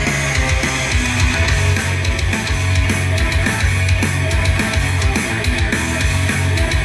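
Punk rock song with distorted guitars and drums, in a stretch with no singing, played through a Free Sound Boombox-215UB-v2 portable speaker with a subwoofer turned up nearly to maximum. The bass is very heavy.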